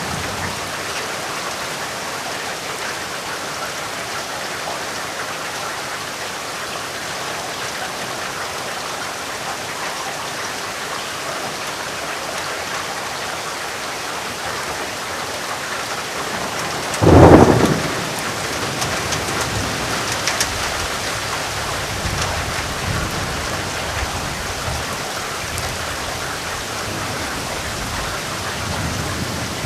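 Steady rain falling, with a sudden loud thunderclap a little past halfway that trails off into low thunder rumbles.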